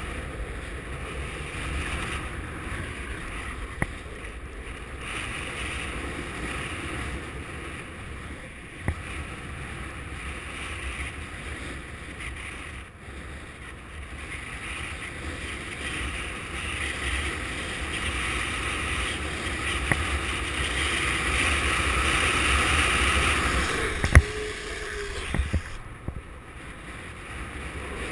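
Longboard wheels rolling steadily down an asphalt road while a strong head wind buffets the microphone with a low rumble. The rolling hiss swells louder for a few seconds past the middle, and a few sharp knocks come as the board rides over bumps in the road.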